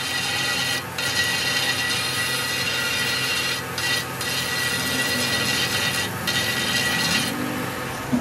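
A power tool spins a small abrasive disc on a long mandrel, grinding down the repaired patch on a tractor engine block: a continuous rasp over a steady high motor whine. The grinding breaks off briefly about four times, near one second in, twice around four seconds and again near six seconds.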